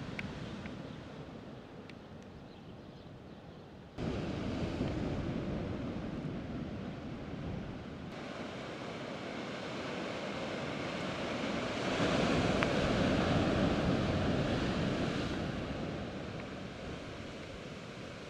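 Sea surf washing and breaking against a rocky shore, with wind buffeting the microphone. It gets suddenly louder about four seconds in, swells to its loudest about twelve seconds in, then eases off.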